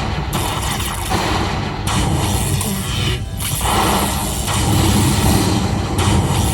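Poker machine playing its bonus-round music and effects, with heavy booming hits as the reels land. The feature is paying out prize values.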